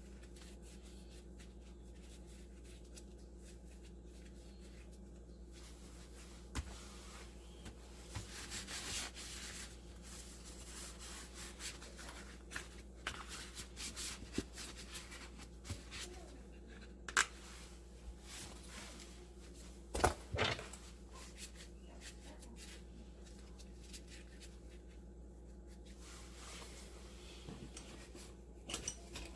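Handling noises of hands working on parts: rubbing and scraping with scattered clicks and knocks, over a steady low hum.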